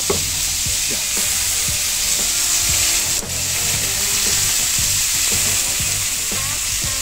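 Beef tenderloin steaks sizzling on a hot griddle, their juices frying in a steady hiss as the first side sears.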